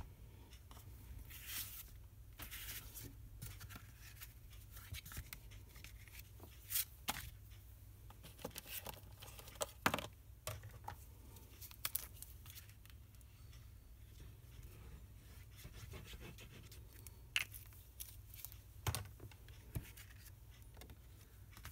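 Faint handling of paper card and craft tools on a desk: scattered light taps, clicks and short scraping rustles over a low steady hum.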